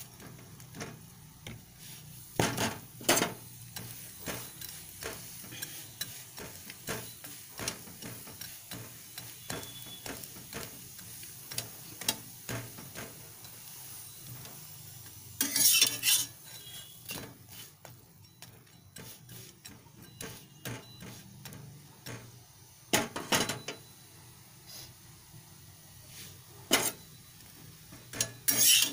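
Ghee-greased paratha frying on a tawa, sizzling lightly, while a steel spoon and then a flat steel spatula scrape, press and knock against the pan. Most of the scrapes are small and frequent; a few are louder, about 3 s in, around the middle, at about 23 s and near the end.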